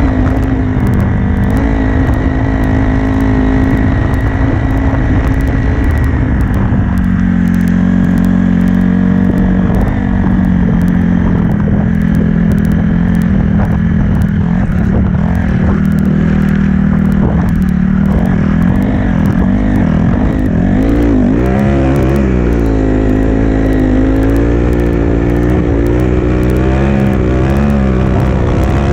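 Honda CRF dirt bike's four-stroke single-cylinder engine running under way through snow. The engine note holds steady, drops about six seconds in, then rises and falls again and again from about twenty seconds in as the throttle is worked.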